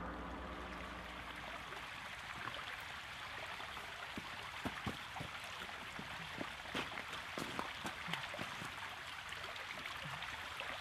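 Forest ambience: a steady rushing hiss with scattered small clicks and crackles, like leaf litter and twigs being disturbed.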